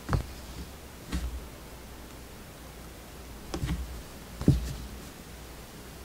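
Handling noise from embroidery work: four soft knocks and thuds as the embroidery hoop and fabric are gripped and moved, the loudest about four and a half seconds in, with faint rustling over a steady background hiss.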